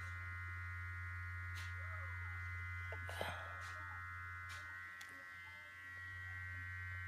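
Plug-in Shibari wand massager running, its motor giving a steady electric buzz while held against the neck. The buzz sags briefly about five seconds in, and a few faint handling clicks sound over it.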